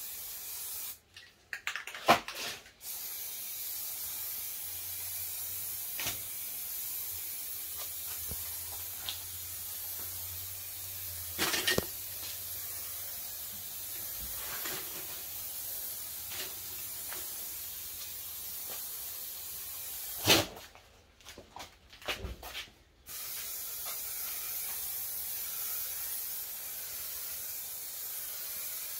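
Aerosol spray-paint can hissing steadily as paint is sprayed onto a plastic bumper grille. The spray stops briefly about a second in and again for a couple of seconds about two-thirds of the way through, with a few sharp clicks around the pauses.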